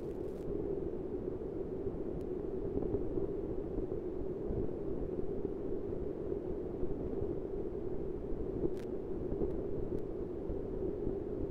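Steady rumbling noise with a hum-like band in the low-middle range and no speech: the recording's noise floor, with the interview voices missing from the track.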